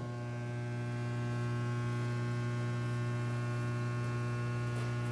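Steady electrical mains hum from powered equipment: a strong low tone with a stack of higher overtones, swelling slightly over the first second or so and then holding even.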